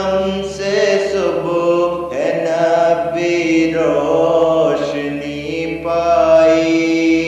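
A solo voice singing an Urdu naat (devotional poem praising the Prophet) in slow, long-held melismatic lines, over a steady low hum.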